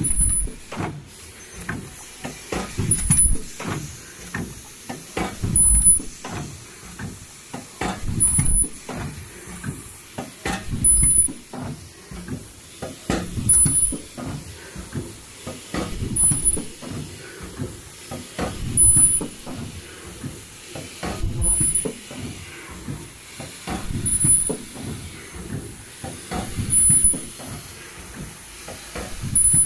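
Automatic KN95 mask production line running: pneumatic cylinders and grippers clacking and knocking in quick irregular succession, with bursts of compressed-air hiss. A short, very high-pitched whine recurs about every two and a half seconds.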